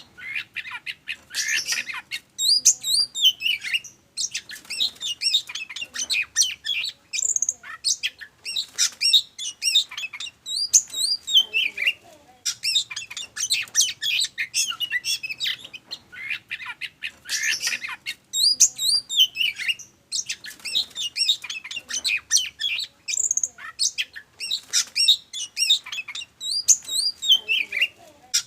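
Oriental magpie-robin (kacer) singing vigorously: a fast, varied run of high whistles, trills, chirps and harsher notes, broken by brief pauses. The same stretch of song comes round again about every 16 seconds.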